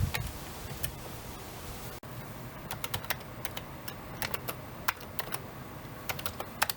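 Typing on a computer keyboard: irregular key clicks, a few a second and often in quick bunches, over steady low background noise.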